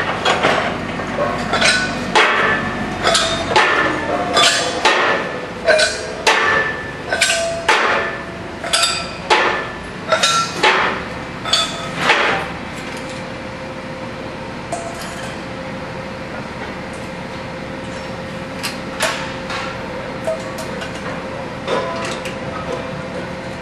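Steel gas cylinders and fill-manifold fittings clinking and clanking as they are handled: a quick run of sharp metallic knocks, each ringing briefly, about two a second, which stops about twelve seconds in. After that a steady background hum with a faint held tone, and a few scattered clinks near the end.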